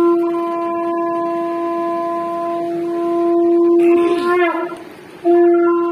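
Conch shell (shankha) blown in one long steady note. It breaks off about four and a half seconds in and sounds again near the end.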